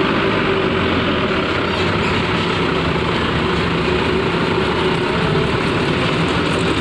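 Coach bus diesel engine running steadily at low revs as the bus creeps slowly up a ferry's boarding ramp.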